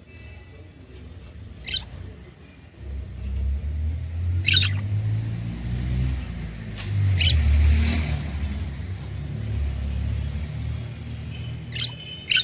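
A low rumble that swells about three seconds in and eases off near the end, with a few short chirps from budgerigars over it.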